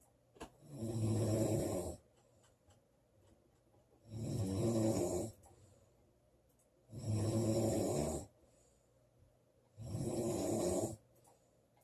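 A woman snoring loudly: four snores, each about a second long, coming roughly every three seconds with pauses between.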